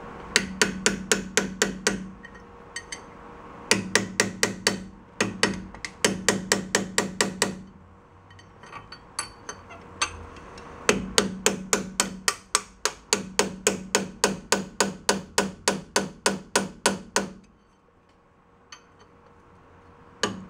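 Hammer blows on a brass drift, driving a bearing onto a VW bus rear axle shaft at the gear reduction box. The blows come quickly, about five a second, in three runs with short pauses between.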